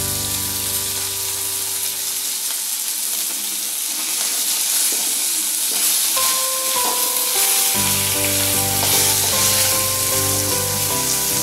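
Chapila fish (Indian river shad) frying in hot mustard oil in a wok, sizzling steadily, with a metal spatula moving and scraping in the pan. Soft background music plays under it.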